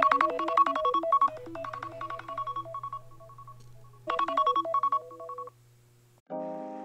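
iPhone alarm tone ringing: a quick, repeating pattern of chiming notes that fades, starts again about four seconds in and cuts off a second and a half later. Soft keyboard music begins near the end.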